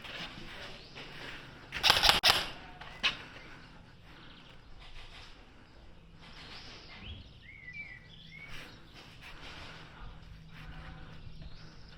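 A short burst of airsoft gunfire about two seconds in, sharp cracks close together, then a single shot about a second later, over a low outdoor background. A brief chirp follows near the middle.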